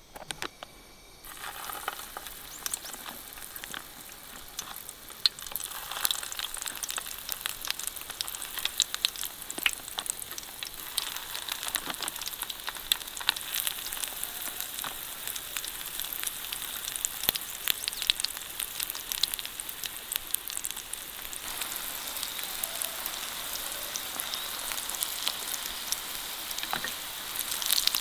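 Food frying in a pan, a steady sizzle full of fine crackles that starts about a second in.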